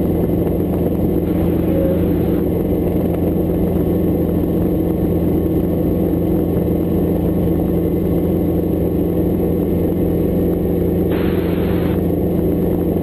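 Hughes 269 light helicopter's piston engine and rotor running steadily in flight, a constant drone and hum. A brief hiss comes twice, about a second in and again near 11 seconds.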